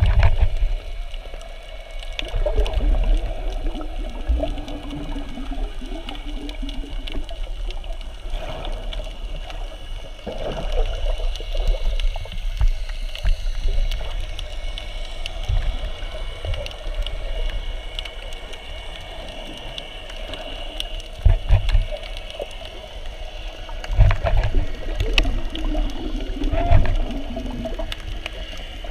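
Muffled underwater water noise as heard by a camera in a waterproof housing: gurgling and sloshing, with several short low thumps.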